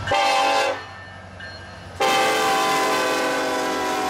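Multi-note air horn of an approaching Norfolk Southern diesel locomotive on a loaded coal train, sounding as a crossing warning. One loud blast cuts off before a second in, and a long blast starts about two seconds in, several notes held together, over the low rumble of the train.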